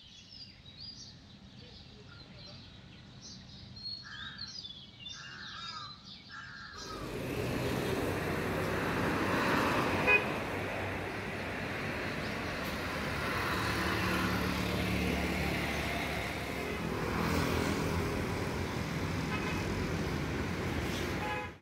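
Road traffic passing on a wide city road, a steady noise of engines and tyres, with one short vehicle horn toot about ten seconds in. Before it, for the first seven seconds, a quieter stretch of small birds chirping.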